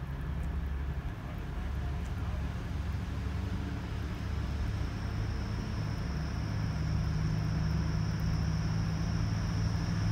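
Class 180 Adelante diesel multiple unit approaching: a low engine drone with a steady hum that grows gradually louder, and a faint high whine coming in about halfway through.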